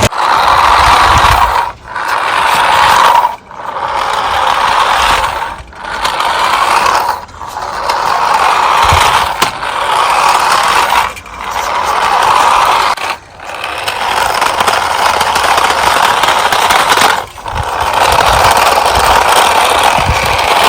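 Toy remote-control car's electric motor and gears whirring as it is driven, cutting out briefly every few seconds and starting again.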